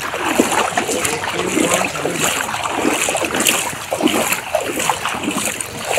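Legs wading through knee-deep floodwater, with a sloshing splash at each step in an uneven walking rhythm.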